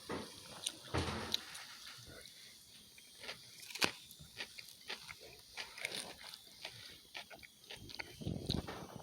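Close-up chewing of a mouthful of salad: wet mouth smacking and crisp crunching clicks, with two louder, lower bursts about a second in and near the end.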